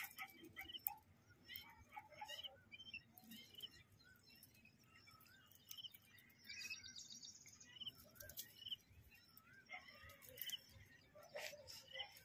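Faint background birdsong: scattered short chirps and rising-and-falling calls, with a brief buzzy trill about six and a half seconds in, and a few light clicks.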